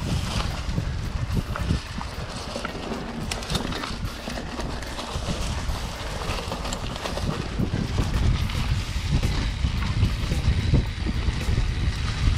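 Mountain bike ridden over a rough dirt forest trail, picked up by a handlebar-mounted camera: a steady low rumble from the tyres and frame, with frequent rattling knocks as the bike goes over roots and bumps.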